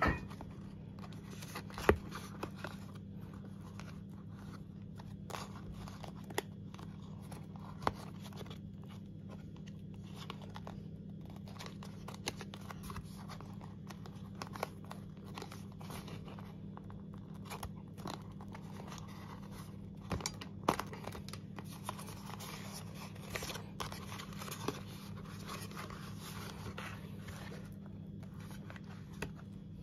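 Paperboard takeaway box being unfolded and flattened by hand: crinkling, scraping and sharp crackles as the folds and flaps are pried open, with a few louder snaps, over a steady low hum.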